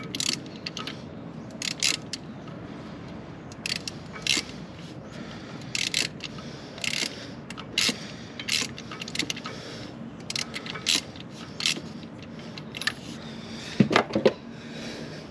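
Metal hand tools clinking and scraping against metal, in short irregular clicks, with a louder double clank about fourteen seconds in.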